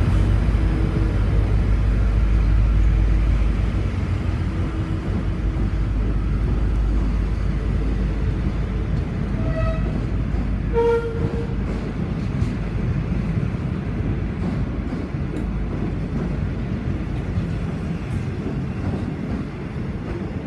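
V/Line passenger train carriages rolling past at low speed as the train pulls out, a steady rumble of wheels on rail. The rumble is deepest in the first few seconds and eases after about four seconds. Two short high tones sound about ten seconds in, and faint clicks come later.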